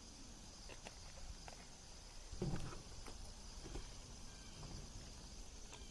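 Liquid starch being poured over muslin cloth in a bowl: faint handling clicks, then a brief wet splash about two and a half seconds in and softer ones after, over a steady high-pitched hiss.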